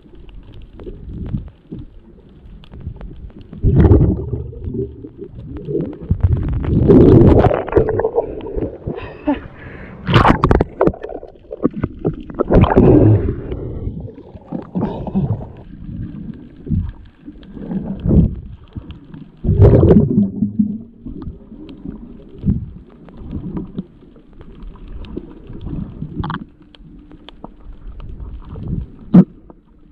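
Water gurgling and sloshing around an underwater camera during a night dive, in irregular loud surges every few seconds over a low rumble.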